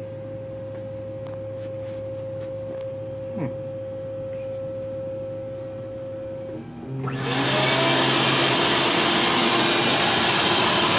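The Hyrel Hydra CNC machine hums with a steady whine. About seven seconds in, a vacuum starts up with a quickly rising rush and then runs as a loud, steady hiss through the hose held at the spindle to pull away chips.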